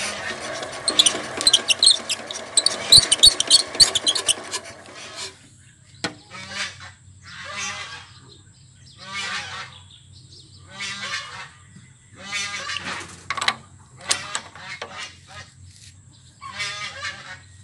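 Honking calls of domestic fowl. Several call together for the first five seconds, then single honks follow every second or two.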